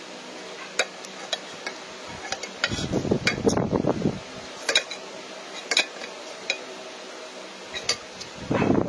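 Metal spoon clinking and scraping against a plate during a meal: scattered sharp clicks, with a longer muffled rustle about three seconds in.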